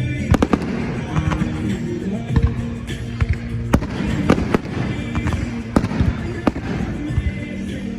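Fireworks bursting in quick succession, a string of sharp bangs and crackles, with music playing underneath.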